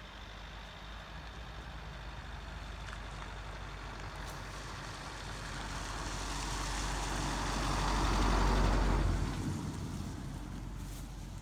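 A motor vehicle passing by: a rumbling noise that grows steadily louder, is loudest about eight seconds in, then fades away.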